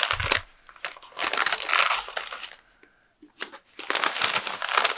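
White paper sleeve around a potted plant rustling and crinkling as it is handled, in irregular stretches with a short lull about three seconds in.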